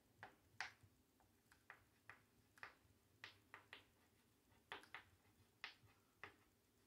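Chalk writing on a chalkboard: faint, short taps and strokes, irregular, about two or three a second, as letters are written.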